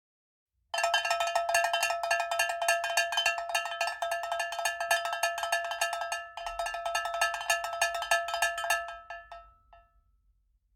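Rapid, continuous metallic strikes with a clear ringing pitch. They start suddenly about a second in, break off briefly past the middle, then resume and die away near the end.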